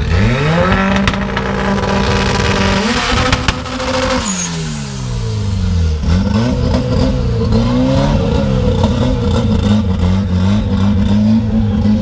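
Car engines revving at a drag-strip start line. The revs climb sharply and hold high for a couple of seconds, drop away around the middle, then are blipped up and down repeatedly.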